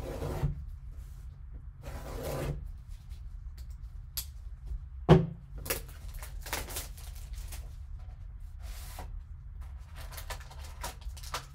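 Plastic shrink-wrap on a sealed cardboard trading-card box being slit with a knife, then rustling as it is torn off and the box lid is opened and a pack pulled out. A sharp click about five seconds in is the loudest sound.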